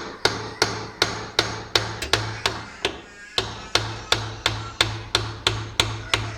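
Repeated hammer blows, about three a second with a brief pause midway, striking a tight bolt on an automatic washing machine's gearbox to loosen it.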